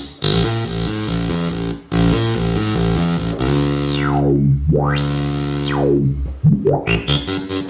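Soviet Ritm-2 analog synthesizer being played: repeated notes give way to a held chord whose filter sweeps closed, opens abruptly, and closes again, then short staccato notes resume near the end.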